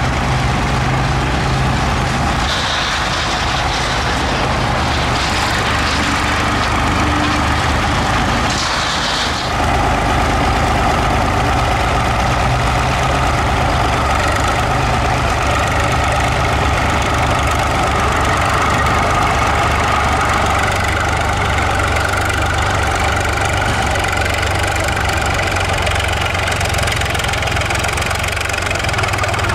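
Caterpillar diesel crawler tractor's engine running steadily as it pushes dirt with its front blade, its note shifting briefly about nine seconds in.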